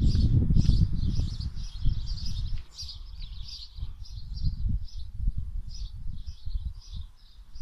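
Birds chirping in quick repeated bursts, over a low uneven rumble that is loudest in the first couple of seconds.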